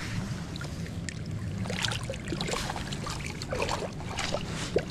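River water gurgling and splashing against rocks close by, over a steady low rumble of current, with the splashing busier from about halfway in.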